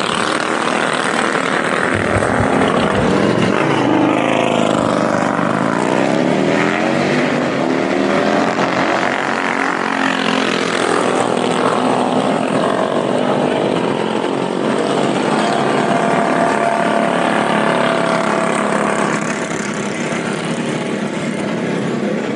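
Several mini bike engines revving, their pitch rising and falling and overlapping. One engine holds a steady high pitch for a few seconds about two-thirds of the way through.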